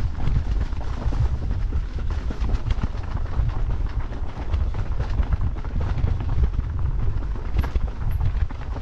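Electric mountain bike rolling fast over rough, rocky trail: a continuous, irregular clatter and rattle from the tyres, chain and frame, with wind buffeting the microphone as a low rumble.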